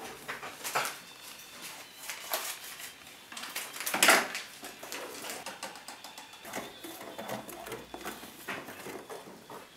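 Kitchen handling sounds: dishes and utensils clinking and clattering irregularly, with a louder clatter about four seconds in.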